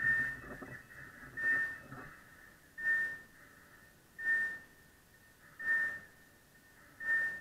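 A short, high chime-like tone repeating evenly about every second and a half, six times. A low hum underneath stops about two seconds in.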